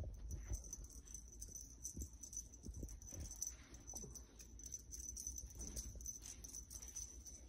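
Kittens scampering and pouncing on carpet after a feather wand toy: faint, irregular soft thumps and patter of small paws.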